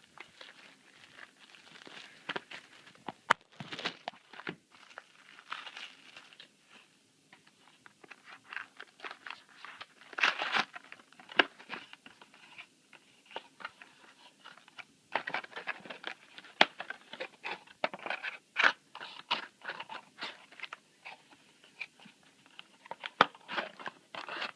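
Packaging being handled and opened by hand: plastic wrap and foil crinkling and tearing, with irregular crackles and light clicks of cardboard.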